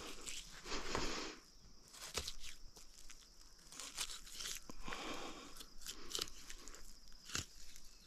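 Knife cutting through meat and sinew on a freshly killed chital deer carcass: irregular crunching and tearing sounds with scattered sharp clicks.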